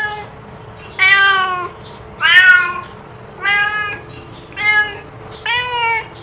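Domestic cat meowing repeatedly in calling meows: about six short, high meows, roughly one a second.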